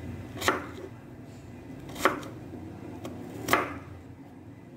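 Knife chopping an onion on a wooden cutting board: three firm strokes about a second and a half apart, with a few lighter taps between.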